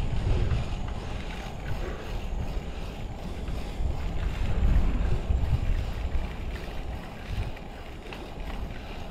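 Wind buffeting the microphone while cycling: an uneven low rumble that swells and fades, easing off near the end.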